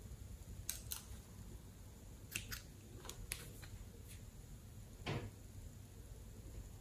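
Faint crinkling and clicking of a plastic piping bag being handled and squeezed, about a dozen small clicks spread through, with one louder knock about five seconds in.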